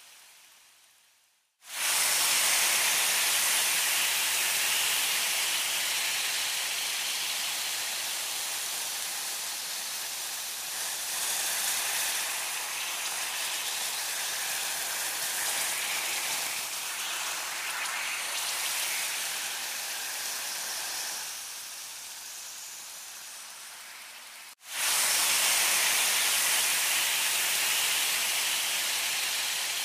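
Meat sizzling on a hot grill: a steady hiss. It fades away and then starts again suddenly about two seconds in, and cuts out and starts again abruptly near the end.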